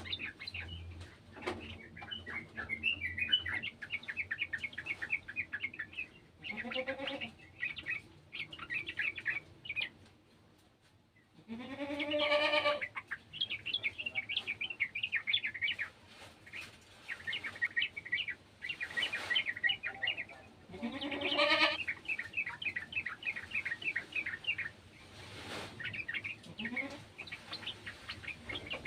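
Yellow-vented bulbuls (trucukan) chattering in rapid runs of chirps, with a goat bleating about five times over them, loudest about 12 and 21 seconds in.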